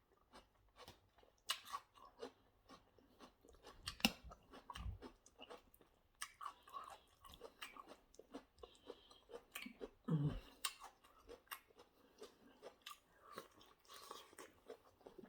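Close-up chewing and crunching of a meal of chicken wings and salad, with many small crisp crackles and mouth clicks. A short hummed 'mm' of enjoyment comes about ten seconds in.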